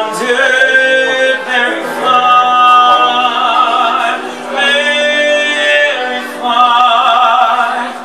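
A male vocalist singing live in long held notes with vibrato, in about four phrases with short breaks between them, over piano accompaniment.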